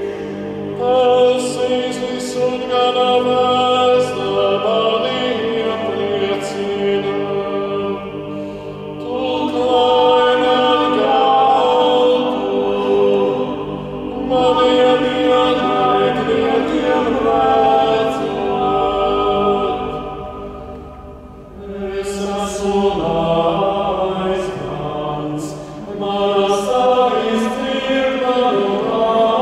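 A small male vocal ensemble singing Gregorian chant unaccompanied, in long phrases with brief pauses for breath between them.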